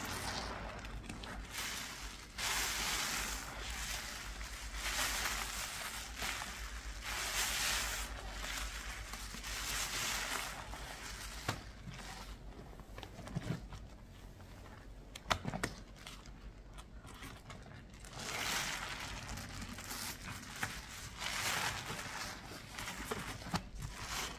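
Cleaning paste of Ajax powder, Pinalen and fabric softener being worked by hand, in repeated crunching, crinkling strokes about one to two seconds long with short clicks between them.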